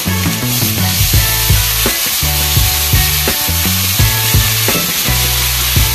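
Water added to hot onion-tomato masala in a kadai, the mixture sizzling and hissing while a metal spatula scrapes and knocks against the pan.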